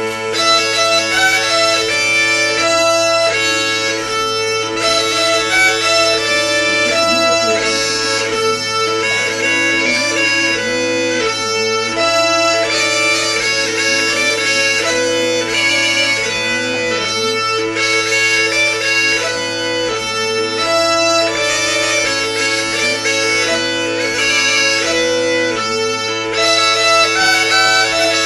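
Two Hungarian bagpipes (duda) playing a Christmas bagpipe tune together: a steady low drone under a reedy chanter melody.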